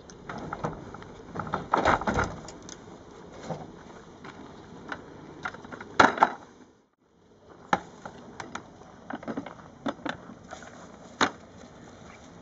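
Scattered knocks and clatters of a Duck Lounge mobile blind cart being slid off a pickup's tailgate and set down on the dirt, loudest just before six seconds in. The sound cuts out briefly about seven seconds in, then light knocks and rattles follow as the grass-covered blind panels are handled.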